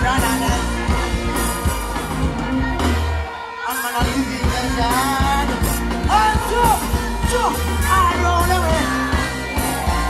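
Live dancehall music: a band's heavy bass and drum beat with a vocalist singing and chanting over it through the PA. The bass drops out briefly about three seconds in, then the beat comes back.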